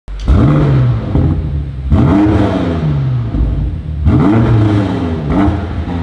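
BMW M8 Competition's 4.4-litre twin-turbo V8 revved in three blips about two seconds apart, each rising sharply and falling back slowly, with a short fourth blip near the end.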